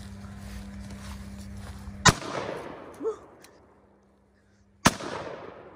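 Two shots from a Taurus Raging Bull .454 Casull revolver, about three seconds apart, each loud and sharp with a long echo fading behind it.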